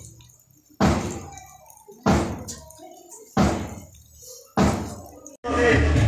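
Single strokes on a large drum, four times about 1.3 seconds apart, each deep and ringing out before the next, keeping time for a group drill. About five and a half seconds in it cuts abruptly to loud music.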